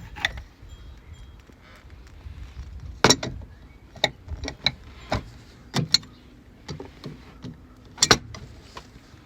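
Hand tools clinking and knocking against metal parts while a bracket in the engine bay is worked loose. A handful of sharp, irregularly spaced clicks, the loudest about three, five and eight seconds in.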